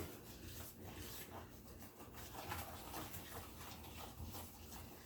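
Faint, irregular scraping and squishing of a utensil stirring a thick glue-and-baking-soda slime mixture in a bowl.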